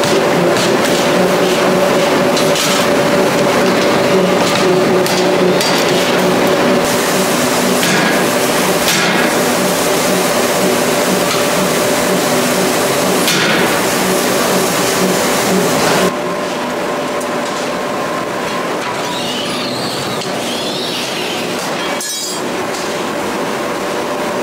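Drop-forging shop machinery hum with scattered, irregular impacts from the drop hammer working hot metal in the die. The whole sound drops in level suddenly about two thirds of the way through.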